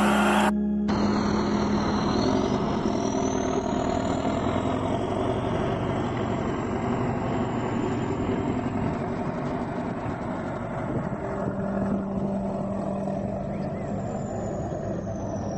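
Heavy vehicle's engine running steadily, a low even rumble with a held hum, after an abrupt cut about half a second in.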